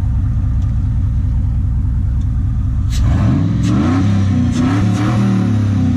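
Supercharged 5.2-litre V8 of a 2001 Dodge Ram 1500 idling steadily, then revved about halfway through, its pitch rising and falling a few times, with a few short sharp clicks over the revs.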